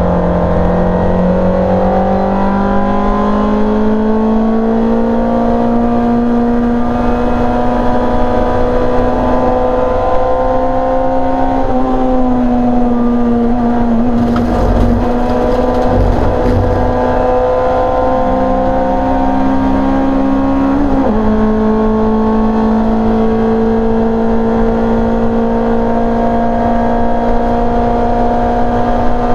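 Engine of a rear-engined Simca racing car at full race pace, heard from inside the stripped cockpit. The pitch climbs over the first few seconds, then holds high and steady, with a brief dip about twelve seconds in and a sudden step about two-thirds of the way through, as at a gear change.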